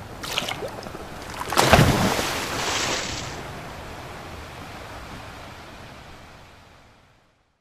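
Ocean-wave sound effect for a logo reveal: a surge that crashes about two seconds in, then a long wash that slowly fades out near the end.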